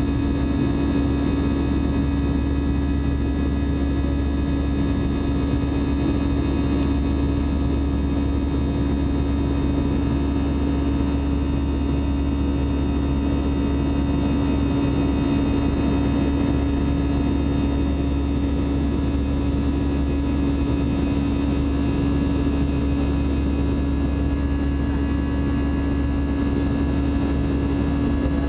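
Airbus A320 turbofan engine at climb thrust heard inside the cabin, a steady drone with several held tones: the buzzsaw noise of the fan blade tips running faster than sound.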